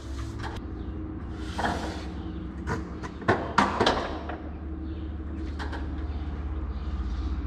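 Paper drywall tape handled and pressed onto a wall seam by hand: a short rustle, then a cluster of sharp taps and rustles between about three and four seconds in, over a steady low hum.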